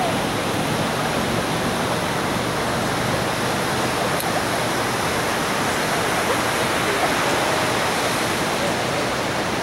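Ocean surf breaking and washing up a sandy beach, a steady, even rush of whitewater with no single crash standing out.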